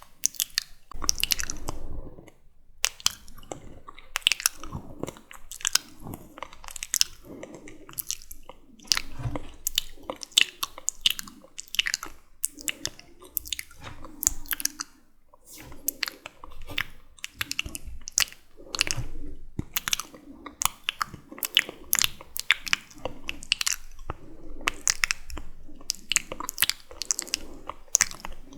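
Wet, sticky mouth sounds close to the microphone: rapid clicks and smacks of lips and tongue, made without words.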